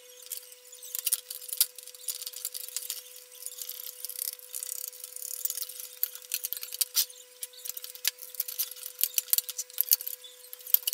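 Small irregular clicks and rattles of a circuit board, components and wires being handled and fitted into a sheet-metal amplifier case, over a faint steady hum.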